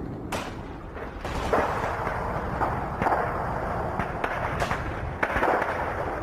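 Scattered gunshots: about half a dozen sharp cracks, unevenly spaced, over a steady background rumble.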